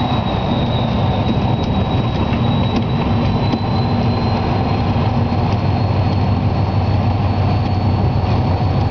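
Diesel locomotive running along the track, heard from on board: a steady low engine drone with a thin high whine above it that rises slightly, and a few faint clicks.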